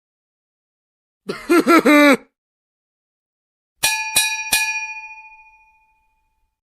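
Two short comedy sound effects: first a brief cartoonish voice-like sound with quickly wobbling pitch, then a bell struck three times in quick succession, ringing out and fading over about two seconds.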